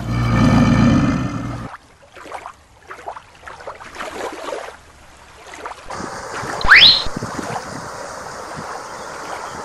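Rushing water noise. A loud pitched tone sounds for about the first second and a half, and a quick rising whistle comes about seven seconds in.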